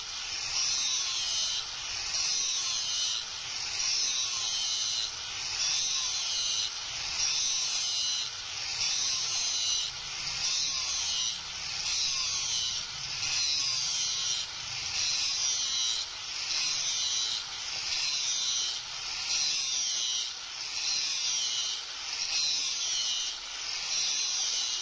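Electric angle grinder with an abrasive disc grinding a spring-steel blade. The grind swells and eases in regular pulses about once a second as the disc is swept back and forth along the blade.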